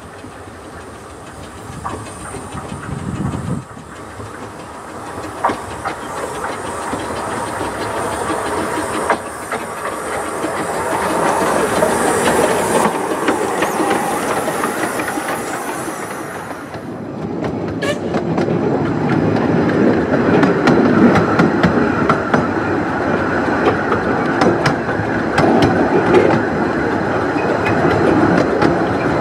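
15-inch gauge steam locomotives working trains. First the River Esk runs past with steam hissing from its cylinder drain cocks and coaches rumbling behind. After a sudden cut a bit over halfway through, a second steam locomotive comes closer with its train, coach wheels clicking over the rail joints and growing louder.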